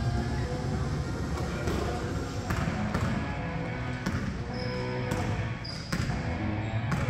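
Basketball bouncing on a gym floor, with several sharp knocks about a second apart, and sneakers squeaking a few times in the second half, under players' voices. Music with steady pitched notes comes in during the second half.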